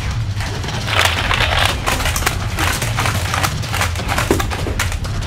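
Rapid, irregular clattering of a belt-fed Nerf Vulcan blaster firing darts, with a denser, louder burst about a second in.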